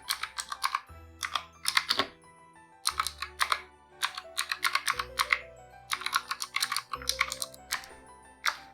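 Typing on a Razer Huntsman Mini 60% mechanical keyboard with optical switches: quick runs of key clicks broken by short pauses, over soft background music.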